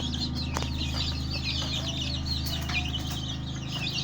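A crowd of newly hatched native Nigerian chicks peeping continuously, many high chirps overlapping, over a steady low hum.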